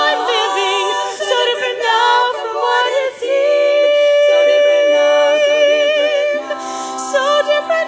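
Women's barbershop quartet singing a slow ballad a cappella in close four-part harmony. About halfway through they hold one long chord.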